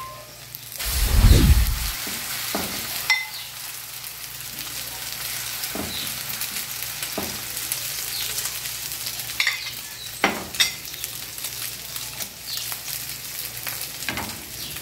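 Omelette batter of beaten egg and chopped vegetables sizzling as it fries in a hot oiled nonstick pan, a steady hiss as it goes into the pan. There is a low thump about a second in and scattered light clicks and knocks throughout.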